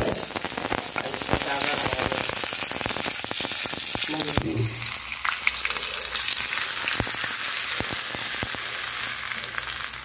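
Tadka sizzling and crackling: mustard seeds and chopped green chillies spluttering in hot oil in a small pan. Partway through, the hot tempering is tipped onto the coconut chutney and keeps sizzling.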